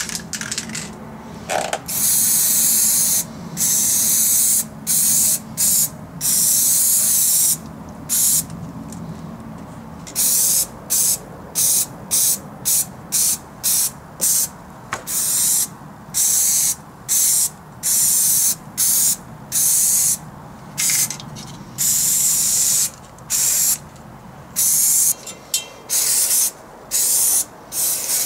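Aerosol paint-remover can spraying onto a metal gun receiver in a couple of dozen hissing bursts, some short and some a second or more long, starting about two seconds in.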